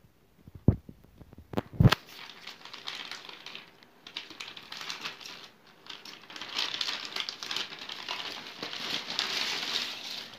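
Plastic courier mailer bag crinkling and rustling as it is opened and the cardboard box inside is pulled out, a dense crackle of fine ticks, after two dull knocks about a second apart near the start.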